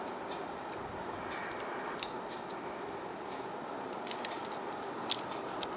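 Scattered small, sharp clicks and taps of hard plastic Lego Technic parts being handled, the loudest about two seconds in and about five seconds in, over a steady hiss.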